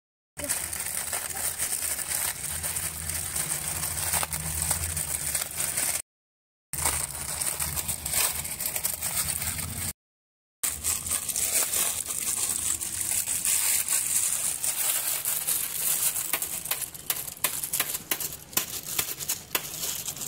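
Small open wood fire crackling under a steel pot of water: many small sharp cracks over a steady hiss. The sound cuts to silence twice, briefly, about six and ten seconds in.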